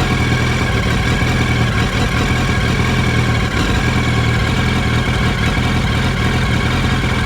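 2007 Yamaha R1 inline-four engine idling roughly, sounding like it is missing. New spark plugs have not cured it, and the original ignition coils are still fitted.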